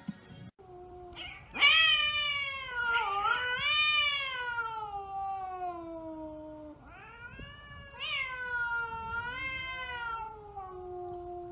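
A cat yowling in two long, drawn-out cries of several seconds each: the first slides slowly down in pitch, the second rises and then falls away.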